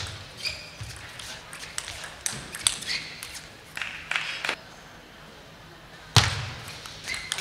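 Table tennis rally: the ball clicks off the bats and the table in quick exchanges for about four seconds. After a short lull there is a loud, sudden burst about six seconds in.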